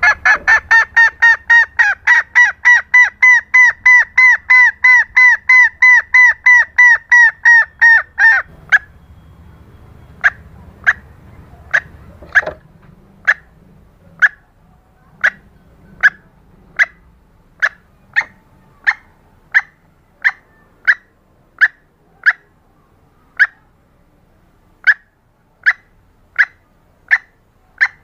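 Junglefowl hen lure call: a fast run of loud clucks, about four a second, for the first eight seconds, then single short clucks about once a second. The calls are a hen call of the kind used to lure wild junglefowl.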